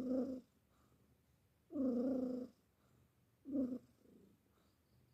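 Domestic cat snoring in its sleep: a pitched snore with each breath, about every two seconds, the third one shorter.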